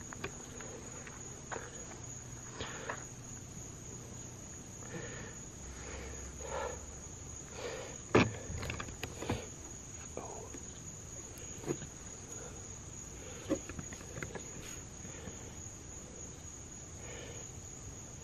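Night insects, crickets, trilling in one steady high-pitched drone, with scattered light taps and scuffs on top, the sharpest about eight seconds in.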